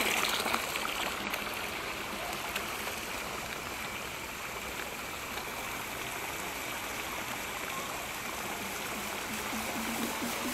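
Steady rush of running, splashing pond water.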